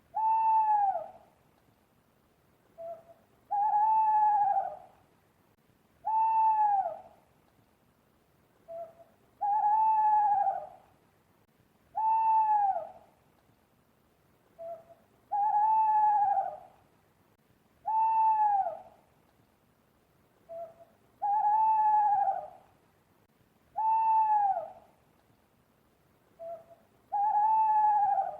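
An owl hooting in a repeating phrase: a brief soft note, then a long hoot that arches and falls away at the end, then a shorter falling hoot. The phrase comes round about every six seconds, with quiet gaps between the hoots.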